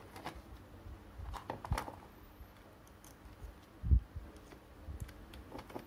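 Small plastic clicks and taps as the parts of a plastic toy's head are handled and the mouth piece is pried off, with one dull thump about four seconds in.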